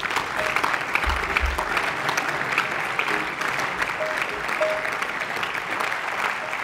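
Members of a parliament applauding at the end of a speech: dense, steady clapping from many people.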